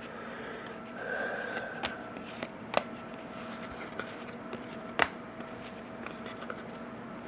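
Football trading cards being handled and flipped through, making a few sharp clicks and soft taps over a faint steady hum.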